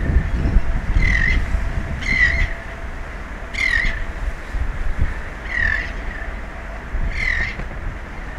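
A bird's harsh squawking call, repeated five times about every one to two seconds, over a low rumble that is strongest in the first two seconds.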